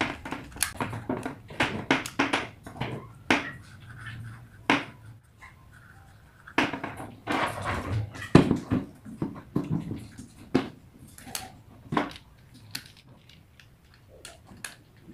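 Irregular clicks, taps and scrapes of an electric fan's plastic gearbox and a screwdriver being handled as the gearbox is fitted and screwed back onto the motor housing.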